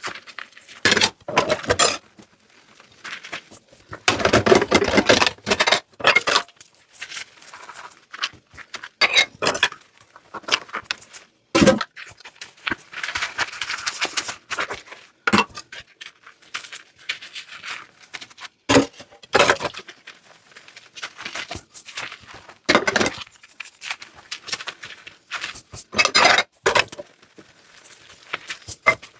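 Dishes being washed by hand: plates, glasses and cutlery clinking and clattering against each other in the sink, in irregular bursts, with a couple of short spells of running water.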